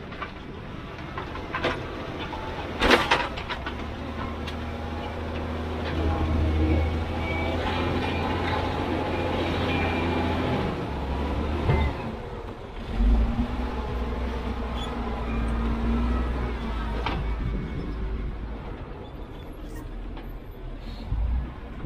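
Heavy diesel earthmoving machine's engine running and working, its low drone shifting in pitch and loudness as the load changes. Several loud clanks cut across it, the loudest about three seconds in, with more around the middle and near the end.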